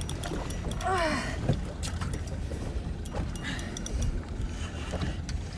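Low steady rumble and water sounds of a small boat sitting on open water, with scattered small clicks and a faint voice about a second in.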